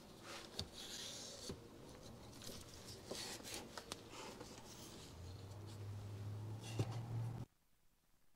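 Faint handling noise, light rubbing with a few small clicks, as the bench work and the camera are moved. A low steady hum joins about five seconds in, then the sound cuts out completely near the end.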